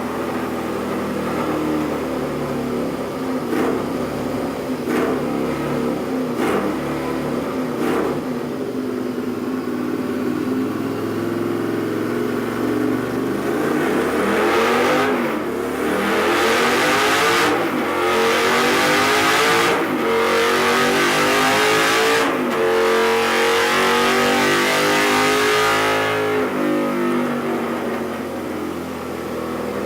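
Custom Honda CX500 V-twin with a 2-1-2 exhaust running lumpy and low, with four sharp cracks about a second and a half apart. About halfway through it revs up hard and is held at high revs with a few brief dips, then drops back toward idle near the end.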